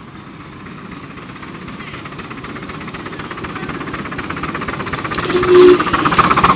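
Auburn Valley No. 401, a 7.5-inch gauge live-steam locomotive built by Little Engines, approaching with rapid exhaust beats and running-gear clatter that grow steadily louder. About five seconds in comes a short, loud two-note whistle blast.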